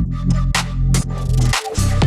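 Electronic dance music with a pounding kick drum and deep bass. The bass cuts out briefly near the end.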